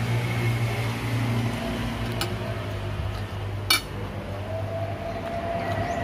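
Spoon and fork clinking against a plate twice, about two seconds in and again near four seconds, over a steady low hum. A steady tone joins in after about four and a half seconds.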